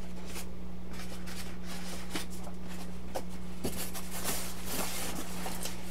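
Faint rubbing, scraping and light knocks as an RC airplane fuselage is handled and lifted out of its styrofoam packing box, over a steady low hum.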